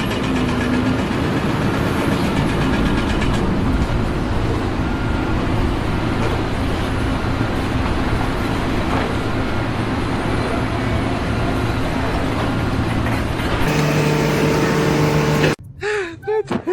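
Loud, steady running noise of a heavy vehicle or machine engine. It cuts off suddenly near the end, where a voice and music begin.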